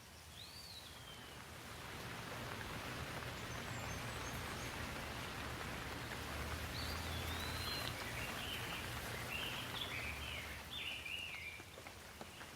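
Rain falling in a steady hiss that swells over the first couple of seconds and eases near the end. A bird calls once near the start and chirps repeatedly in the second half.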